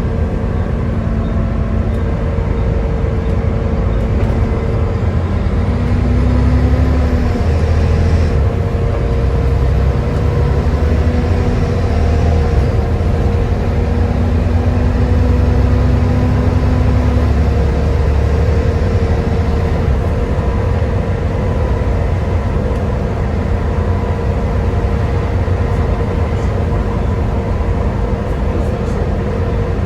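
Volvo B7TL double-decker bus's six-cylinder diesel running under way, with a steady low drone and a whining tone over it, the vacuum-cleaner-like 'hoovering' these buses are known for. The drone grows a little louder about a fifth of the way in and eases off after the middle.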